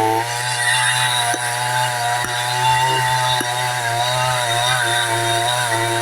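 Chainsaw engine running at steady high speed while cutting through wood, its pitch wavering slightly under load.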